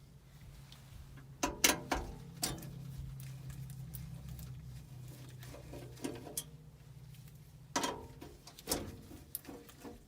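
Clinks and rattles of tools and metal gas-furnace burner parts being handled, in two bursts, about a second and a half in and again near the end, over a steady low hum.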